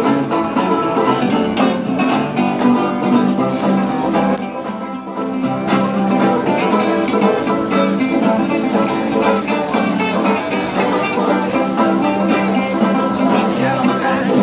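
Acoustic string band playing together: banjos strummed and picked over guitars, one of them a resonator guitar, in a bluegrass-style tune at a steady pace.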